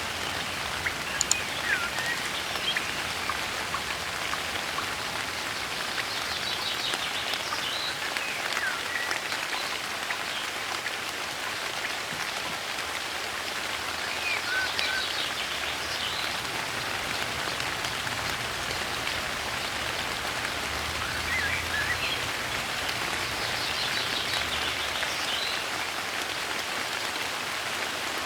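Steady soft rain falling, with birds singing now and then over it in short chirps and trills.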